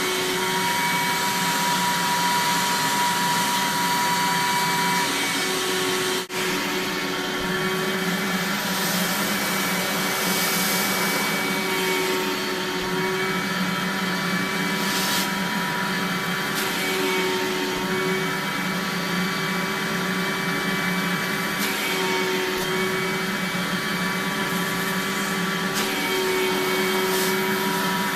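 Eureka Mighty Mite 3112A canister vacuum cleaner running steadily, its motor pitch shifting slightly now and then as the suction load changes. There is a brief drop-out about six seconds in.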